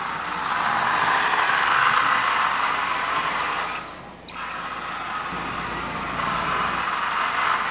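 Marx 1998 toy diesel locomotive running on the track: its electric motor and gearing give a steady whirring rattle that dips briefly about four seconds in. The motor is dirty and dry, and the owner can tell from this sound that the armature is really dry and needs lubricating.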